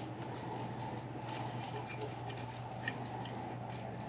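Steady low hum with a few faint, light ticks and taps over it.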